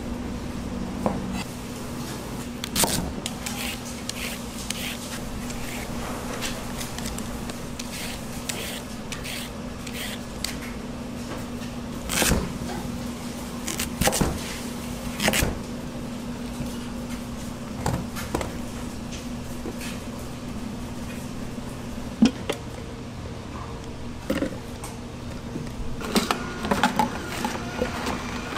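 Large chef's knife cutting orange peel and carrots on a plastic cutting board: sharp knife strikes against the board every few seconds, with slicing and scraping between them, over a steady low hum.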